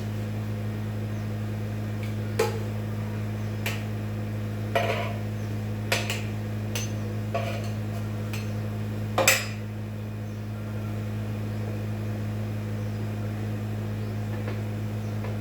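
Kitchen utensils knocking and clinking: about seven sharp knocks at uneven intervals, the loudest a little after nine seconds in, over a steady low hum.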